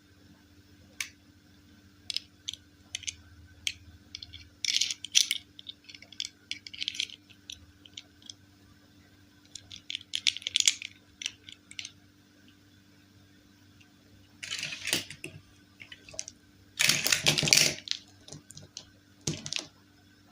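Hands handling a doll and its packaging: scattered small plastic clicks and short crinkling rustles, with a longer, louder rustle about three quarters of the way through.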